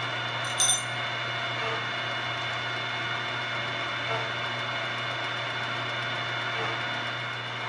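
Vertical milling machine running steadily with its spindle turning a wiggler (edge and center finder), a motor hum with a steady whine over it. A brief high ping sounds about half a second in.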